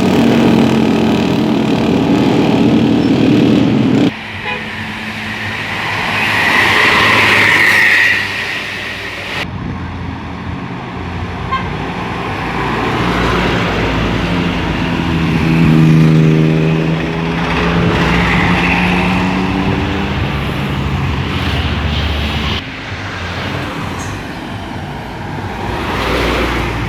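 Telolet bus horns, the multi-tone musical horns of Indonesian buses, sounding over bus engines and road noise, including a run of changing horn notes midway. The sound changes abruptly about four, nine and twenty-three seconds in.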